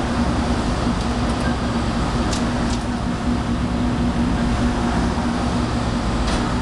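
Steady mechanical hum with rushing air noise from a running air-conditioning unit, with a few faint clicks.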